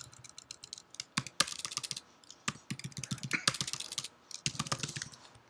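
Typing on a computer keyboard: irregular key clicks in short flurries.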